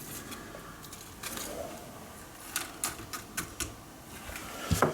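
Spoon scooping dry chopped aspen bark: scattered light clicks and rattles of bark pieces and spoon against the container, with a louder knock near the end.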